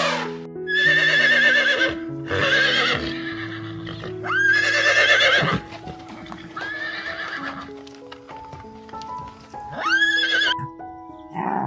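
A horse whinnying five times, each neigh a quavering, wavering call about a second long, over background music with long held notes.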